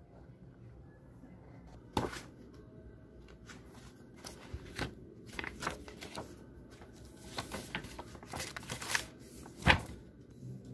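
Printed paper notes being handled and spread on a desk: rustling and sliding paper with light taps. There is a sharp knock about two seconds in and a louder one near the end.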